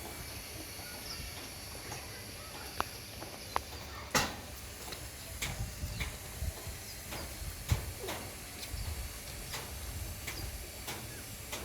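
Puppies nursing from their mother dog: scattered wet clicks and small knocks with a couple of brief high squeaks over a low steady hiss. Two sharper knocks stand out, about four seconds in and near the eight-second mark.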